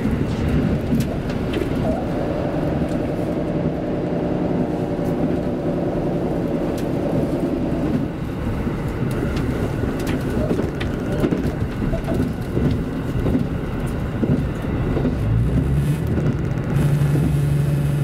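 KiHa 85 series diesel railcar heard from inside the carriage: engine and running noise, with a pitched engine tone in the first half and a steady low hum setting in near the end.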